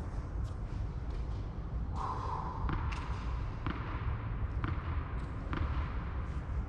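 Tennis ball bounced repeatedly on a racket's strings: a series of short sharp taps, roughly one a second, with a steady low rumble underneath. A brief high tone sounds about two seconds in.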